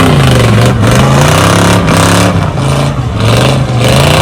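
Off-road vehicle engine revving hard in repeated surges, rising and falling about once a second, as it churns through deep mud and water.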